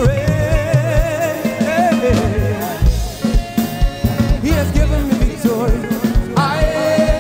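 Upbeat music with a lead voice singing a wavering, vibrato-laden line over a drum kit and a heavy bass beat.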